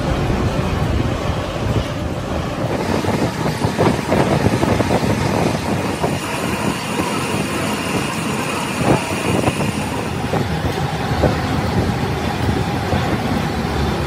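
Workshop machinery running, with frequent irregular clanks and knocks of metal and a faint high whine from about six to ten seconds in.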